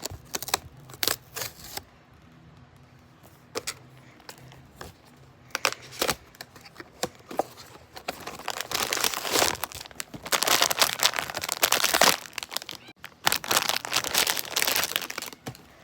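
Packaging of a blind-box toy being torn open and crinkled by hand. Scattered clicks and short rustles at first, then long stretches of loud crinkling from about halfway through, with a short pause between them.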